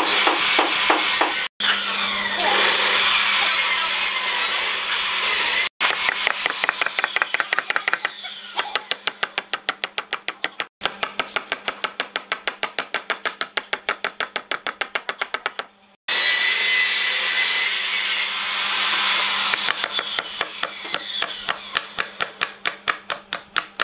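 Hammer striking a hardwood block in quick, even taps, about five a second, driving a glued softwood dovetail joint together. The sound breaks off abruptly several times.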